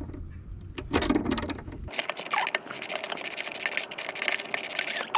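Hand ratchet wrench clicking in quick runs as it works the nut on a car battery's negative terminal clamp. A steady low hum stops about two seconds in, and after that the clicking is denser and faster.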